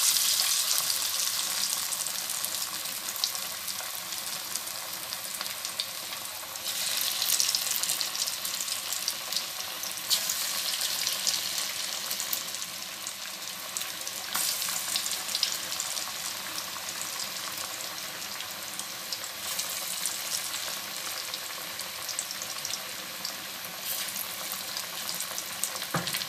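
Lentil-and-onion fritter (piaju) batter deep-frying in hot oil, a continuous crackling sizzle. It swells several times as more flattened portions of batter are dropped into the oil.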